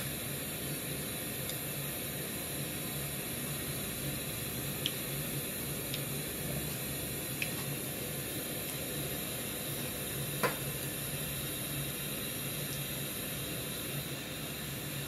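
Breadcrumb-coated bread rolls deep-frying in hot cooking oil: a steady sizzle with a few small pops scattered through it.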